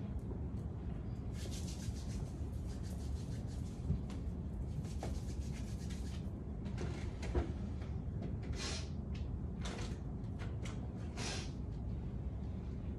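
Rustling and rubbing as papers and small objects are handled on a classroom desk, in short bouts over a steady room hum, with a couple of light knocks.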